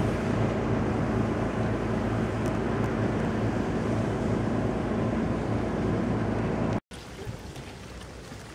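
River boat's diesel engine running steadily with a low hum, its propeller churning icy water, under wind noise on the microphone. About seven seconds in the sound cuts to a quieter, steady rush.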